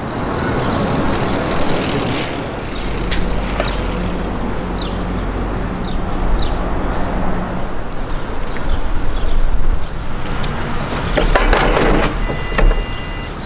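City street traffic: cars and a heavier vehicle passing with a steady low rumble. Near the end, a short electronic beep of two steady high tones sounds as a bike-share bike is pushed into its docking station.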